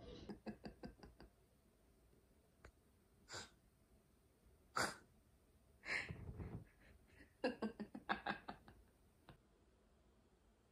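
A person's quiet, breathy laughter: a few short runs of rapid laugh pulses with single sharp breaths between them.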